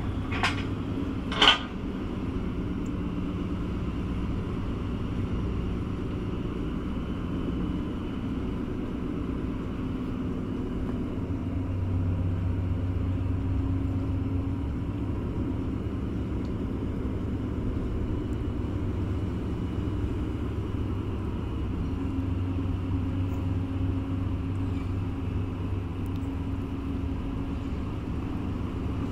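Tugboat's diesel engines running steadily: a low rumble with a hum that swells a little about twelve seconds in and again around twenty-two seconds. Two sharp metallic knocks come in the first two seconds.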